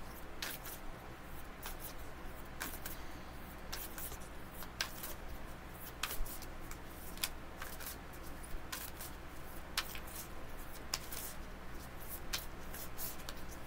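Deck of tarot cards being shuffled and handled by hand: a run of short, irregular card clicks and flicks over a faint steady low hum.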